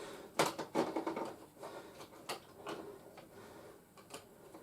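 A few knocks and scuffs of toy packaging being handled, most of them in the first second and a last one near the end.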